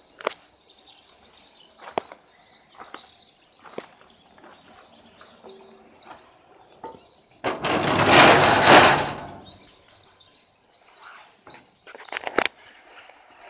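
The loudest sound is a scraping, rumbling noise of nearly two seconds, about halfway through, as the door of a small preserved mine-railway passenger car is opened. Around it are scattered footsteps, knocks and clicks, with birds chirping faintly in the background.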